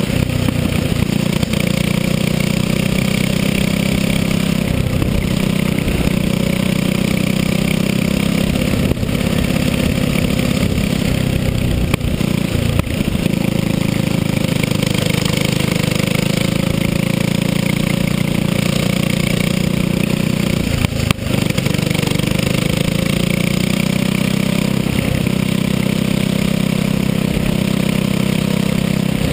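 Racing go-kart engine running hard, heard close up on board the kart. Its note falls and rises again a few times as the kart slows and accelerates through corners, with a brief sharp drop about two-thirds through.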